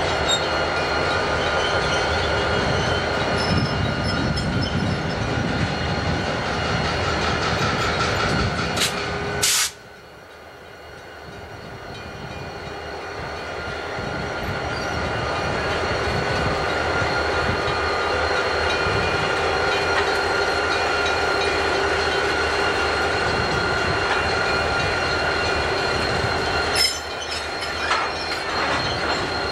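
Grand Trunk Western diesel locomotives passing close by, engines running, with the squeal of steel wheels on the rails and then freight cars rolling past. About a third of the way in the sound cuts off sharply after two clicks and builds back up over several seconds. A shorter dip with clicks comes near the end.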